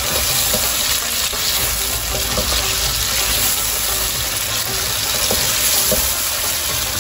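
Chicken pieces frying in oil and spices in a black karahi, sizzling steadily while a wooden spatula stirs and turns them, with faint scrapes and taps of the spatula against the pan.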